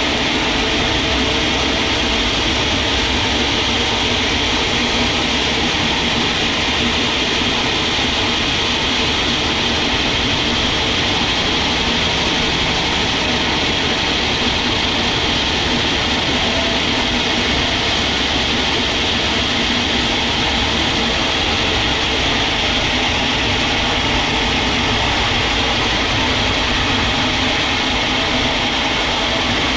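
Sawmill machinery running with a steady, unchanging mechanical noise.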